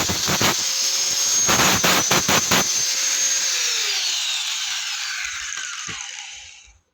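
Electric angle grinder running with bursts of grinding noise as it works the metal, then switched off about three and a half seconds in: its whine falls steadily in pitch as the disc spins down and fades out near the end.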